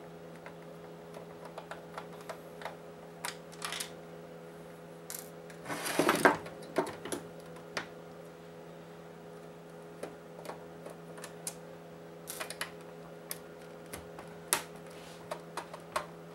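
Small scattered clicks and taps as screws are worked out of a PlayStation 4's plastic and metal casing with a hand screwdriver, with a louder rattling handling noise about six seconds in. A steady low hum runs underneath.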